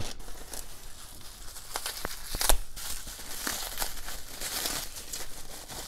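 Plastic bubble wrap and a plastic bag crinkling and rustling as hands unwrap packed items, with scattered crackles and one sharper crackle about two and a half seconds in.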